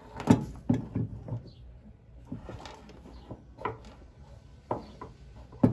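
Scattered small clicks and knocks of carburetor parts being handled, as the vacuum slide with its diaphragm and needle is fitted into the carb body. The loudest knocks come about a third of a second in and just before the end.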